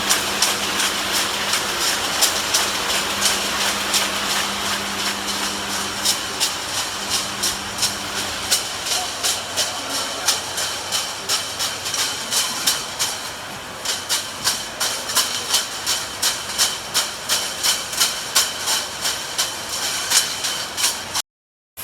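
Automatic can body welding machine running, with a steady hiss and regular clicking a few times a second. The sound cuts out briefly near the end.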